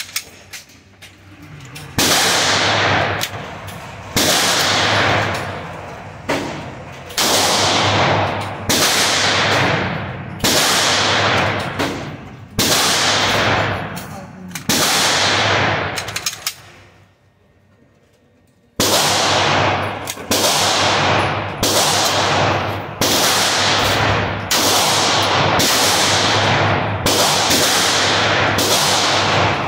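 Compensated Glock 17 9 mm pistol fired single shots in an indoor range, each shot echoing off the walls. The first shots come one every one to two seconds; after a short pause near the middle the shots come faster, about one a second.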